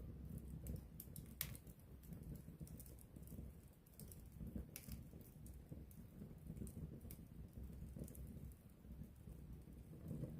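Campfire burning up close: irregular sharp crackles and pops of burning wood over a low, steady rumble of flame.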